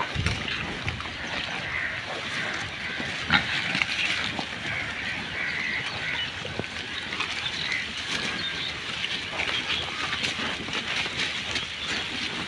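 Several pigs grunting and snuffling as they root through plastic litter, with the rustle and crinkle of the wrappers under their snouts and one louder crack about three and a half seconds in.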